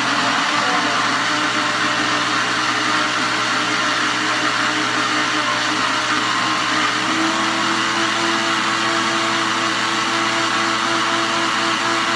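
Countertop blender running steadily, blending strawberries, a whole lemon and water into juice. Its pitch settles a little higher about seven seconds in.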